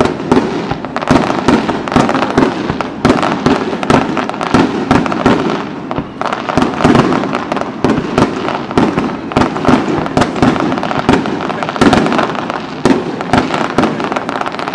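Fireworks display: aerial shells bursting in a dense, loud barrage of overlapping bangs, many a second, without a pause.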